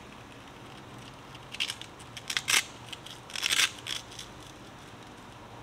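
An 800-grit sanding disc being fitted and pressed onto a handheld sanding pad: a few short rasping crackles, about a second and a half, two and a half and three and a half seconds in.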